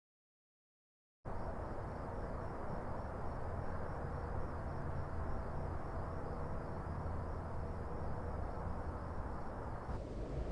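Dead silence, then from about a second in a steady low rumble of distant industrial and town ambience. A faint high wavering whine runs over the rumble, and the high part of the sound falls away near the end.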